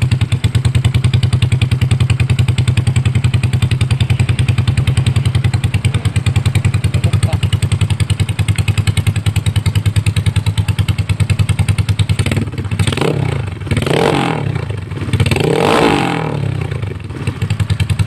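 Yamaha Mio scooter's single-cylinder engine idling with an even, pulsing exhaust beat. About two thirds of the way through, the throttle is blipped a few times, and the pitch rises and falls with each rev before the engine settles back to idle.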